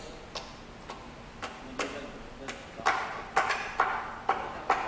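A run of sharp clicking knocks, about two a second, getting louder about three seconds in.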